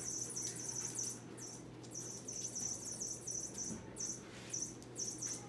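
Crickets chirping in an even, high-pitched pulsing rhythm of about three or four chirps a second, pausing briefly a couple of times, over a low steady hum.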